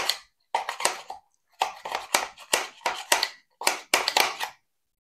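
A kitchen scissors blade being drawn along a sharpening rod to sharpen it: about ten quick metal scraping strokes, stopping about four and a half seconds in.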